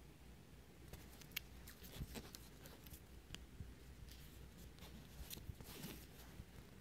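Faint rustling and light taps of paper collage pages being handled and turned, scattered from about a second in until near the end.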